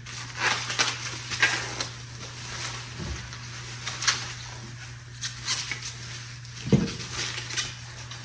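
Packaging rustling and small metal RC truck parts being handled: irregular crinkles and light clicks, with two dull knocks about three seconds in and near seven seconds.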